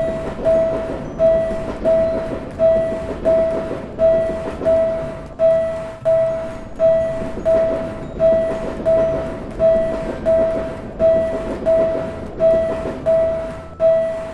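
Railway level-crossing warning bell ringing in a steady rhythm of single struck tones, about three every two seconds, over the rumble of a passing train.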